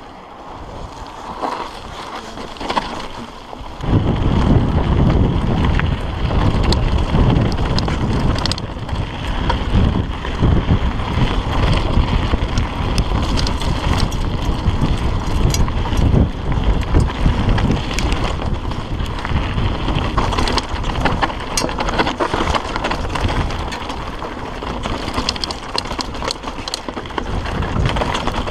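Wind buffeting the microphone of an action camera riding on a hardtail mountain bike, with tyre noise and frequent clicks and rattles of the bike over rough gravel and rock. Quieter for the first few seconds, then a much louder rumble from about four seconds in.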